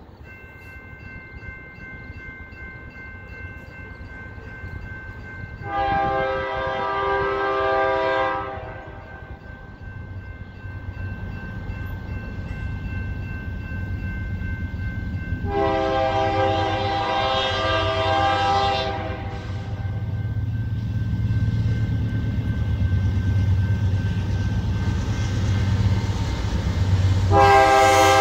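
BNSF diesel locomotives approaching, their engines rumbling louder and louder. The multi-chime air horn sounds two long blasts about ten seconds apart and starts a third near the end.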